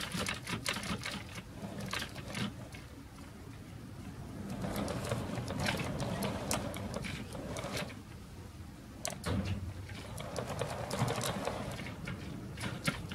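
Model railway hopper wagons rolling on track: a run of sharp metallic clicks as wheels cross rail joints and the turnout and couplers knock together, then two spells of steady rolling rumble with more clicks between them.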